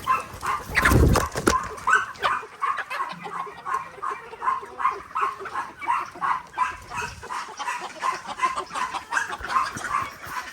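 An animal calling over and over, short calls two or three times a second, with a loud low thump about a second in.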